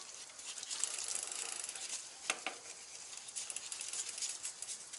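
Scrubbing of a wet, soapy mountain bike frame by hand: a busy crackling rustle of quick strokes, with a couple of sharper clicks a little over two seconds in.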